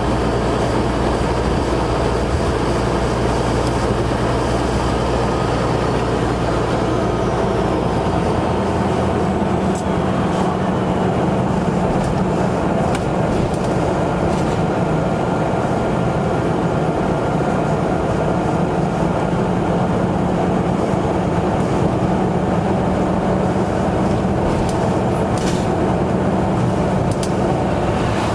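Caterpillar C15 diesel of a semi truck, straight-piped with no muffler, running steadily while driving; its low note changes about eight seconds in.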